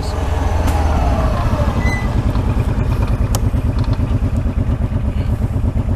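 ATV engine running as the quad slows, its whine falling over the first second and a half, then settling to a steady low-speed chug.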